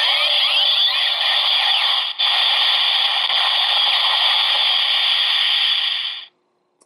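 DX Ghost Driver toy belt playing its Tutankhamun Omega Drive finisher sound effect through its small speaker: a loud hissing electronic noise with sweeping pitch glides in the first second. It breaks off briefly about two seconds in and cuts off abruptly a little after six seconds.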